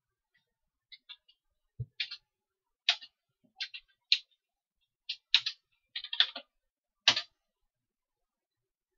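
Computer keyboard keystrokes: about a dozen separate key clicks, irregular and some in quick pairs, spread over roughly six seconds. One near the start has a duller thud, like a heavier key such as Enter.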